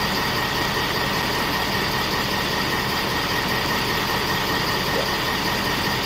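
Steady machine drone from a running engine, with a constant high whine over a low hum and no change in pitch or level.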